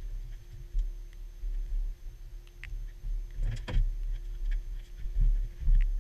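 A boat's engine running under way: a steady drone under an uneven low rumble, with a few sharp clicks and a falling sweep about halfway through.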